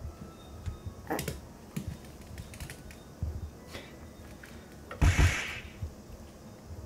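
Scattered light taps and clicks of a cat's and a Chihuahua's paws and claws on the floor and chair legs as they face off, with one louder thump and brief scuffling rush about five seconds in as the cat lifts a paw toward the dog.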